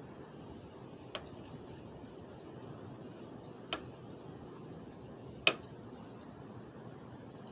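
Three short sharp clicks of a metal fork against the food tray, a few seconds apart, the last one the loudest, over a low steady background noise.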